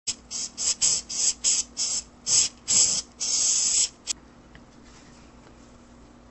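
Chalk-writing sound effect: about ten quick scratchy strokes of chalk on a board, the last one longer, followed a moment later by a single click and then only a faint low hum.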